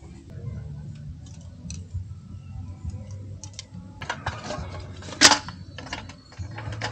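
Folding camp chair being handled and set up: rustling fabric and small clicks of its frame. The handling grows busier about four seconds in, with one loud sharp click about a second later, over a low steady rumble.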